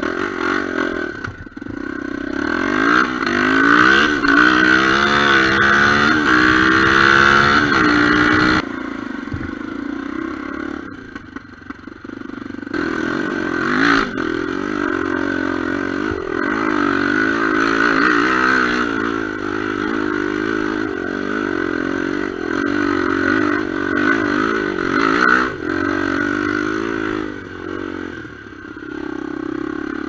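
Honda XR250R enduro motorcycle's single-cylinder four-stroke engine revving up and down under way on a rough dirt trail, with the bike clattering over the ground. The sound drops abruptly about nine seconds in and comes back louder about four seconds later.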